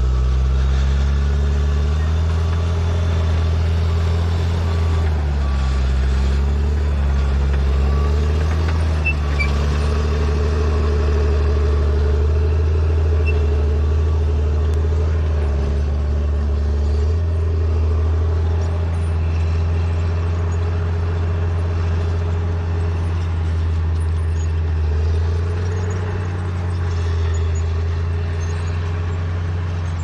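Crawler bulldozer's diesel engine running steadily under load while the machine clears ground, its pitch rising and falling slightly as the load changes. A faint regular beeping runs through the first several seconds.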